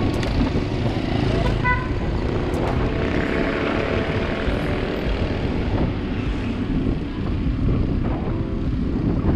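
Wind rushing over the microphone of a handlebar-mounted GoPro while cycling along a city street, with motorcycle and tricycle engines running in the traffic ahead.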